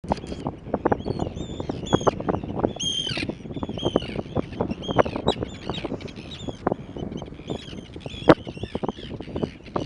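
A flock of birds calling, with many short falling calls overlapping one another over a low rumble and thumping.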